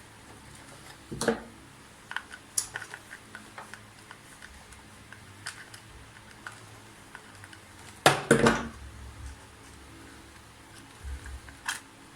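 Scattered small clicks and knocks of plastic and metal parts and tools being handled while a vacuum cleaner's cord-reel assembly is taken apart, with a louder knock about a second in and a louder clatter about eight seconds in.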